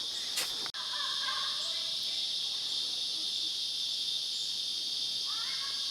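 Steady, high, continuous drone of an insect chorus in rainforest, with a few faint short chirps over it.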